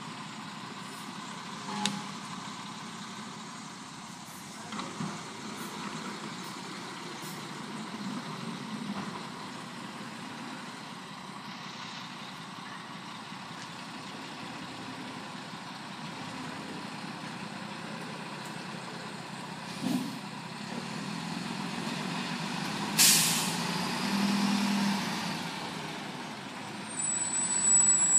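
Mack garbage truck's diesel engine running steadily, with a few small knocks and a sharp air-brake hiss about five seconds before the end. A brief high squeal comes right at the end.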